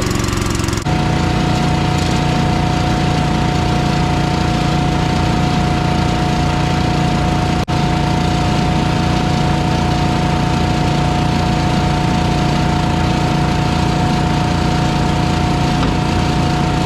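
Farm machinery running steadily at constant speed: an engine with a steady whine over it, with an abrupt change about a second in and a very brief break near the middle.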